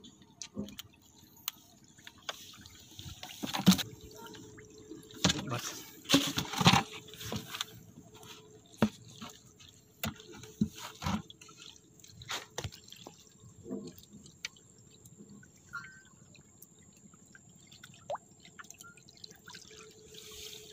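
Irregular splashes and drips of water as a freshly caught fish is handled in a plastic bucket, with scattered light knocks. The loudest splashes come in a cluster between about four and seven seconds in.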